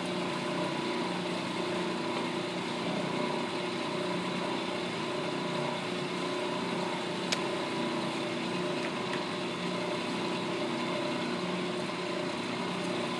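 Ammco brake lathe running steadily with a brake drum spinning on its arbor, a steady mechanical hum with several held tones; the cutter feed is not yet engaged. A single sharp click about seven seconds in.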